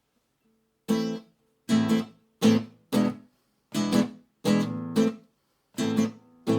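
Acoustic guitar strumming chords in short, separate strokes with brief gaps between them, starting about a second in.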